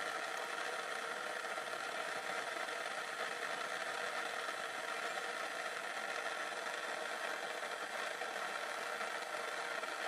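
A steady, even whirring background noise with no separate knocks or clicks standing out.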